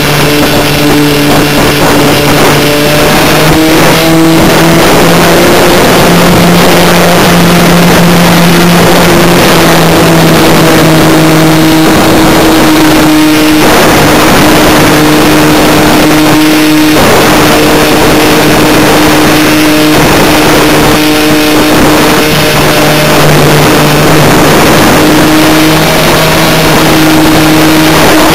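Skybug RC model plane's motor and propeller running in flight, heard loud and close from a camera under the wing: a steady droning hum whose pitch steps up and down a little a few times as the throttle changes.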